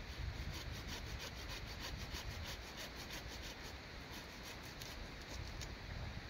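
Hand pruning saw cutting through an upright olive branch, topping the freshly planted cutting, in quick even back-and-forth strokes, about four a second, stopping shortly before the end.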